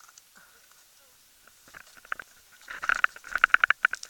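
Mountain bike on the move, making a fast run of clicks and rattles that starts about halfway through and gets loud near the end.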